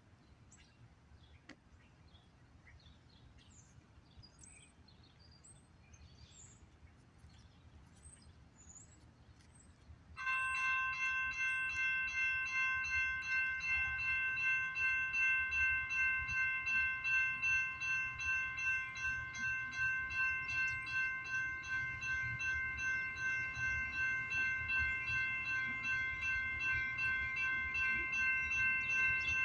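Railroad grade-crossing warning bell switching on suddenly about ten seconds in and ringing in steady, even strokes: the crossing signals are activated for an approaching train. Before it, only faint chirps over a low rumble.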